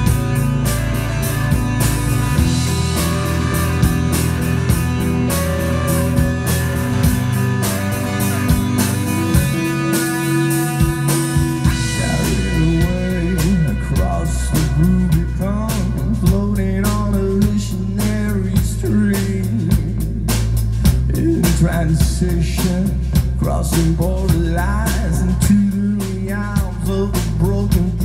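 Live rock band playing electric guitars, bass guitar and drum kit. The bass drops out briefly about ten seconds in, and a male lead voice comes in singing about two seconds later.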